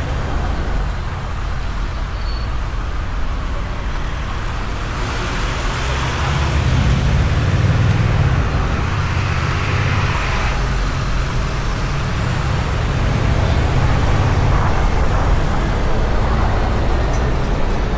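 Honda Rebel 1100 DCT's parallel-twin engine running steadily through its stock exhaust at cruising speed, mixed with wind and road noise. The noise swells louder and brighter for a few seconds around the middle, then settles.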